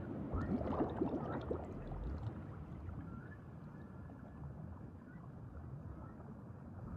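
Underwater ambience sound effect: a cluster of bubbling in the first two seconds, then a steady low wash of water.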